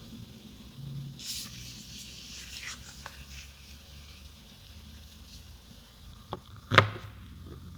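Handling noise from a smartphone and its packaging: light rubbing and sliding with a few small clicks, then one sharp click about seven seconds in.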